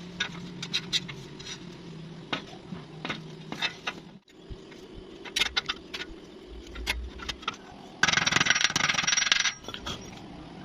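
Light metallic taps and clinks of metal parts being handled, then a loud crackling welding arc about eight seconds in that lasts a second and a half, like a short tack weld on a door hinge.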